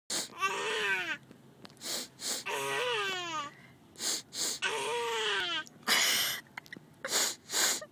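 A person sniffing quickly through the nose, usually twice in a row, and a baby boy answering each pair of sniffs with a squeal of laughter about a second long that falls in pitch. This happens three times, and more sniffs come near the end.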